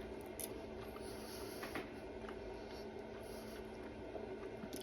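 A few faint clicks and scrapes of a fork in the meal's bowl while eating, over a low steady room hum.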